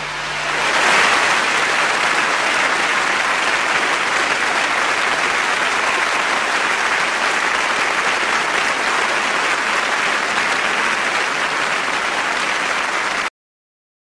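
Large seated audience applauding, a dense, steady ovation that swells about a second in. It cuts off abruptly into silence near the end.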